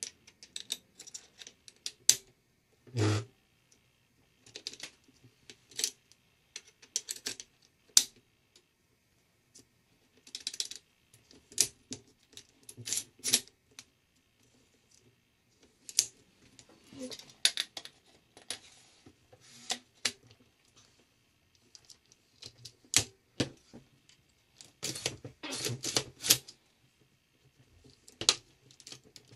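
Small metal firearm parts being handled and fitted during a folding stock adapter installation: scattered light clicks, taps and rattles in irregular clusters, with one louder, slightly longer noise about three seconds in.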